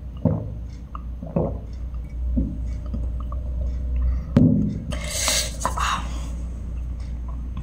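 Water being gulped from a glass mug, three swallows about a second apart. About four seconds in, a knock as the glass is set down, then a short breathy hiss.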